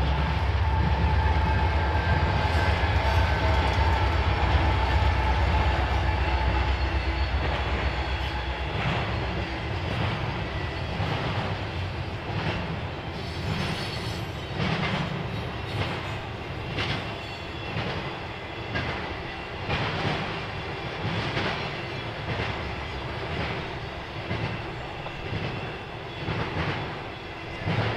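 Freight train passing: the diesel locomotives' low engine rumble for the first several seconds, then the cars rolling by with a regular clickety-clack of wheels over the rail joints, about one click a second.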